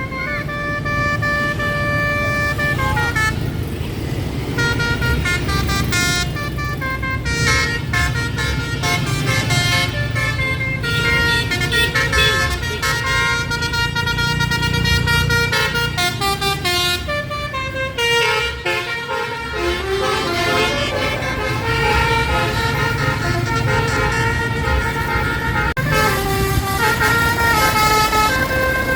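Basuri telolet multi-tone horn on a bus playing fast melodic runs, its notes stepping up and down every fraction of a second, over a steady low engine rumble.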